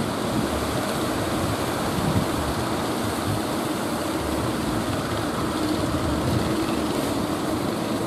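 Waves breaking and surf washing ashore in a steady rush, with wind buffeting the microphone.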